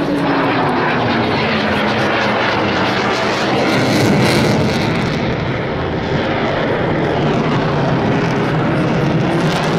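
Boeing F-15I Ra'am jet fighter's engines, loud and continuous as the jet flies past. Over the first couple of seconds an engine whine slides down in pitch as the aircraft moves away.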